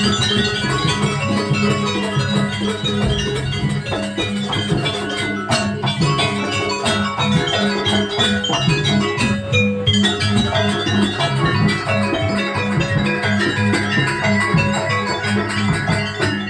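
Live jaranan gamelan music playing steadily: tuned metal percussion ringing over drums, with no break.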